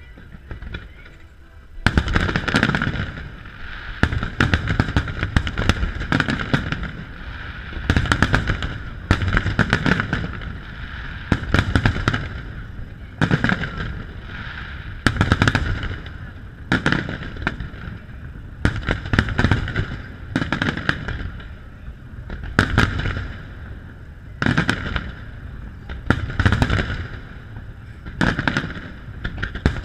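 A fireworks display of aerial shells bursting in quick succession. After about two seconds of lull, a dense barrage of sharp bangs and booms begins and keeps going, swelling into louder volleys every second or two.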